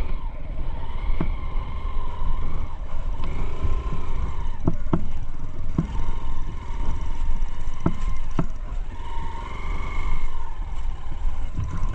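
Dual-sport motorcycle engine running at low speed on a rutted mud road, its note rising and falling with the throttle over a steady low rumble. Several sharp knocks come midway as the bike jolts over ruts and stones.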